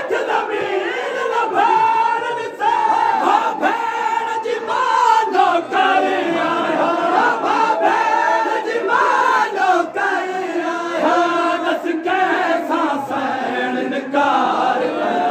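A crowd of men's voices chanting a noha, a Shia mourning lament, together.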